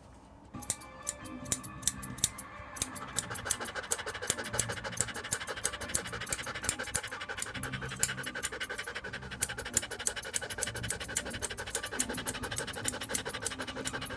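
Grooming scissors snipping through a standard poodle's curly coat in quick, even strokes, about four snips a second. The snipping starts about half a second in.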